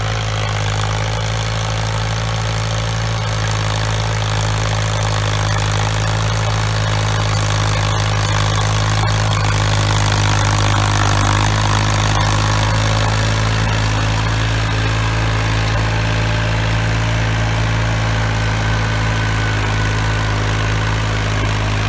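New Holland Ford 3630 tractor's three-cylinder diesel engine running steadily, a little louder around the middle.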